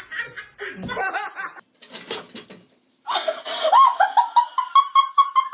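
People laughing; about three seconds in, a loud, high-pitched laugh breaks into quick pulses several times a second.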